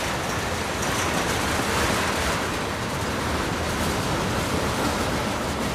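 Manifest freight train cars rolling past: a steady noise of steel wheels on the rails, with no locomotive engine tone.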